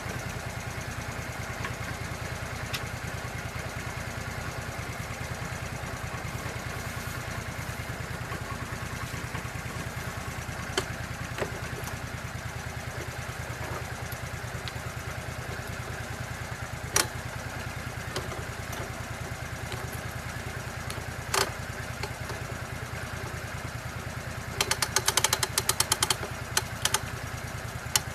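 Lucas swingblade sawmill's engine running steadily at an even speed. A few sharp knocks break in now and then, and a quick burst of rattling clicks comes near the end.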